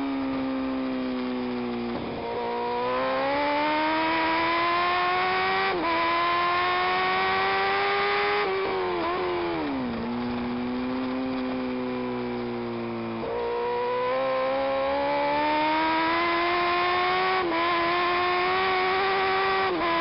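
Sport motorcycle engine heard from an onboard camera at speed on a race track, its pitch climbing under hard acceleration and dropping briefly at gear changes about 6 and 17 seconds in. Around 9 to 10 seconds in the revs fall as the bike slows for a corner, then climb again from about 13 seconds.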